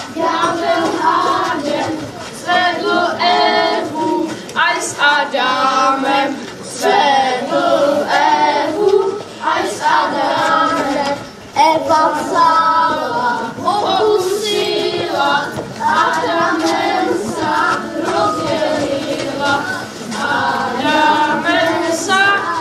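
A group of voices singing a Wallachian folk song together in chorus.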